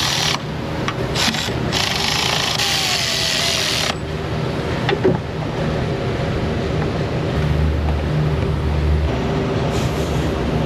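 Cordless drill/driver spinning in screws in short runs during the first few seconds, its pitch falling as a screw seats, with a single click about halfway and a steady low hum of shop background underneath.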